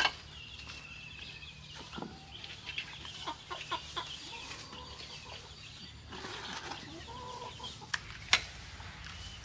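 Chickens clucking now and then, with scattered light knocks and scrapes. Two sharp clacks near the end as a ladle knocks against the feed pot and trough.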